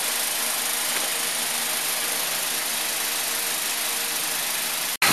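Steady, even hiss with a faint low hum of a machine running, cutting off abruptly near the end.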